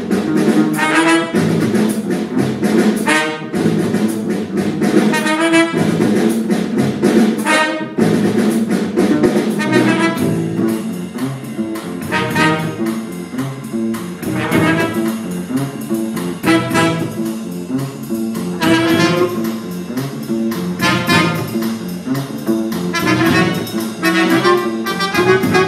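Jazz big band playing an instrumental passage, with brass and saxophone sections over upright bass. Short, punchy ensemble chords through the first eight seconds or so give way to busier moving lines.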